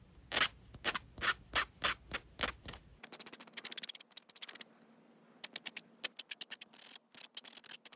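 Edges of a hammered copper toggle bar being smoothed by hand with an abrasive, in back-and-forth scraping strokes. The first three seconds hold slower, separate strokes about two a second; after a break the strokes come in quicker short runs.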